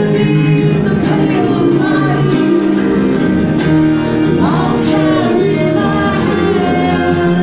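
A live band playing a song with singing over sustained keyboard and guitar notes, heard from the audience in a concert hall.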